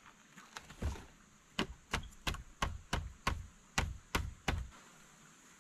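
A quick run of about nine sharp wooden knocks, roughly three a second, from an upright pole of a stick-built shelter frame being worked by hand. A single softer knock comes just before the run, which stops a little before the end.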